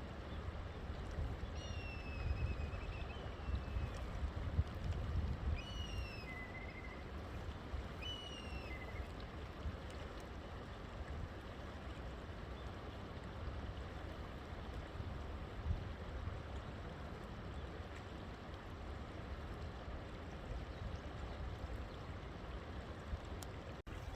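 River water running steadily with a low rumble. A bird calls three times in the first nine seconds or so, each call a short falling whistle followed by a lower note.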